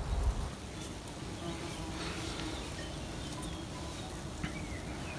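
A flying insect buzzing with a low, steady hum.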